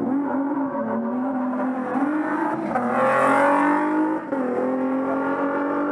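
Car accelerating hard away from a standing start, its engine pitch climbing, falling back at two upshifts about two and a half and four seconds in, then climbing again; loudest around three seconds in.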